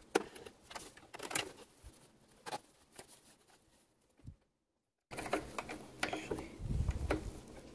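Hands handling fabric, pins and a zipper at a sewing machine: scattered light clicks, taps and rustles. The sound cuts out completely for a moment about four and a half seconds in, and a low rumble follows briefly near the end.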